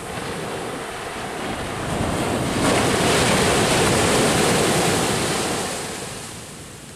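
Ocean surf: a wave breaking and washing up the beach, swelling to its loudest a little under halfway through and then fading away.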